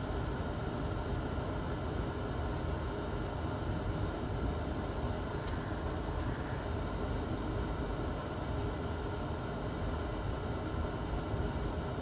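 Steady rushing noise of a fan running throughout, with a few faint ticks near the middle.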